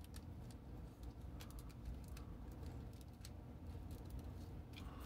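Faint, irregular clicks of a plastic Transformers Animated Sunstorm action figure being handled and its parts moved and snapped during transformation.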